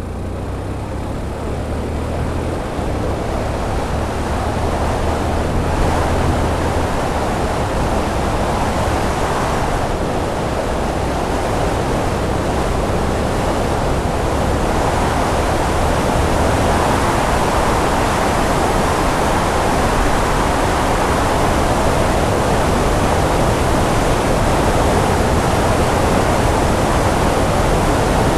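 Wind rushing over a motorcycle helmet camera's microphone through a deadcat muffler, a steady noise that grows louder over the first six seconds or so as the bike picks up speed and then holds. A low hum from the Yamaha FZ16's engine is heard under it at first and is soon drowned out by the wind.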